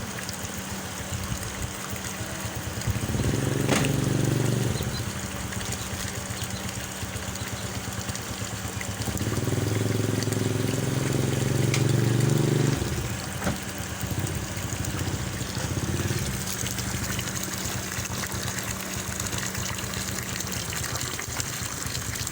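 Shimizu water pump running on trial with a steady hum, water moving through it. It gets louder twice: briefly about three seconds in, and for several seconds from about nine seconds in.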